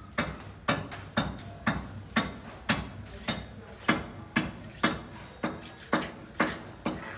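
Steady hammering: about fourteen sharp blows, roughly two a second, each ringing briefly.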